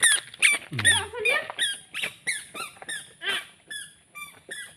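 A rapid series of very short, high-pitched squeaking peeps, each falling slightly in pitch, about two or three a second, from a small animal. The peeps grow fainter toward the end.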